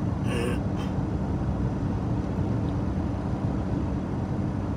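Steady road and engine noise inside a moving car's cabin: a low rumble with a faint steady hum.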